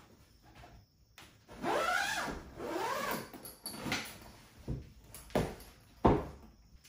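Zipper on a black fabric 3D printer enclosure being drawn shut along the front flap in two long strokes, each rising and falling in pitch, followed by three short sharp knocks as the fabric panel is handled, the last one the loudest.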